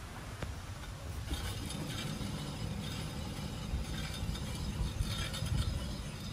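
Front wheel of a T1N Mercedes Sprinter van spinning, its wheel bearing scraping as it turns over a low rumble, starting about a second in. This is the sign of a wheel bearing starting to go bad.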